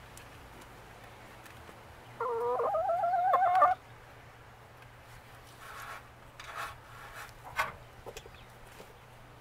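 A hen gives one drawn-out, wavering call about two seconds in, growing louder before it breaks off. A few fainter short sounds and a click follow.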